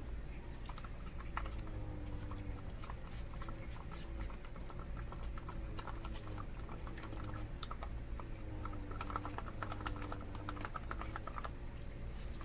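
Plastic spork working through a thick, under-hydrated Alfredo cheese sauce in a ration tray: a run of small, quick clicks and scrapes, densest near the end.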